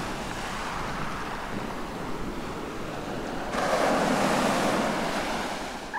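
Choppy sea water washing and lapping, with wind buffeting the microphone; it gets suddenly louder about three and a half seconds in.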